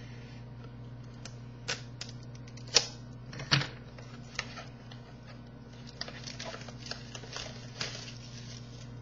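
A football trading-card box and its packaging being opened by hand: scattered sharp clicks and taps of cardboard, then a denser run of small crinkles and clicks about six seconds in. A steady low hum runs underneath.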